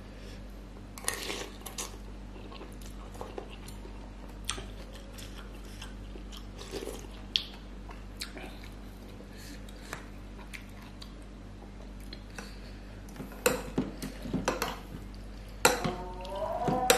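Metal spoon and fork clinking and scraping against a ceramic bowl of meatball soup while eating, in scattered short clicks that come thicker near the end, over a steady low hum.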